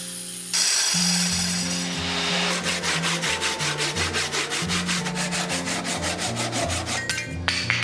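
Hand pull saw cutting through a pine post, finishing a cut that the miter saw was not deep enough to complete. It rasps in quick, even strokes, about four or five a second, which stop shortly before the end.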